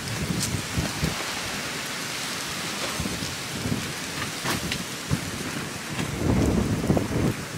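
Strong wind buffeting the microphone: a steady hiss with gusty low rumbles that are heaviest about six seconds in, and a couple of faint clicks.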